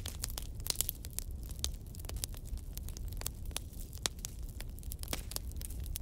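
Wood campfire crackling: irregular sharp pops and snaps, several a second, over a low steady rumble.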